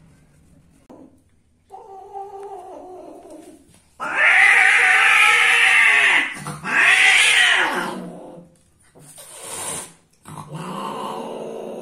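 Female cat in heat crying out while being mated: a softer call, then two loud, drawn-out yowls back to back. Near the end she gives a short hiss and then a long, low growl.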